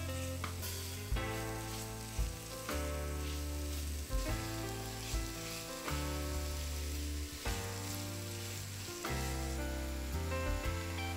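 Grated carrot and sliced red pepper sizzling in butter in a non-stick frying pan, with a spatula scraping and stirring now and then, under background music of held notes over a steady bass.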